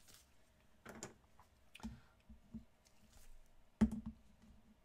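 Trading cards being handled and set down: scattered soft clicks and taps, with one sharper click and knock about four seconds in.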